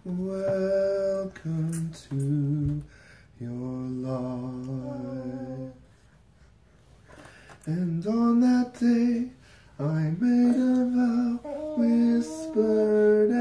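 A man singing a slow lullaby melody in long held notes, with a pause about six seconds in before the tune goes on.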